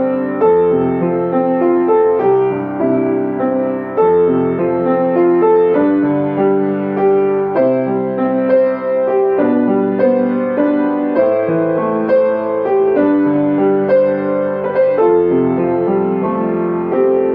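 Piano playing a gentle piece in 3/4 time, melody notes over held chords in an even, rocking rhythm.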